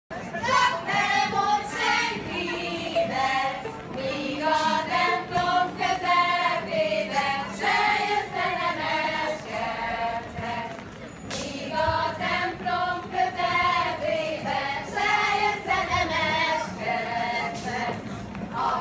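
A group of voices, women's voices prominent, singing a Hungarian folk song in phrases with short breaks between them.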